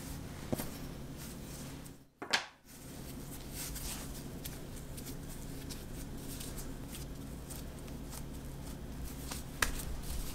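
Steady low hum of room tone with faint soft handling sounds as hands pinch bread dough closed around a ball of red bean paste. A sharp click about two seconds in, inside a brief dropout to near silence, and a smaller click near the end.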